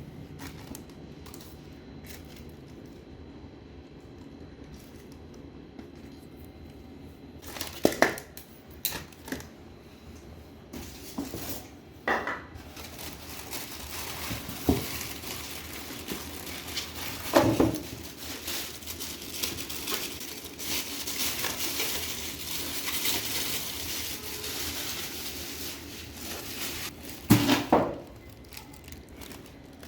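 Handling of the soundbar's packaging and parts: several sharp knocks and clatters, with plastic wrapping rustling and crinkling through the middle.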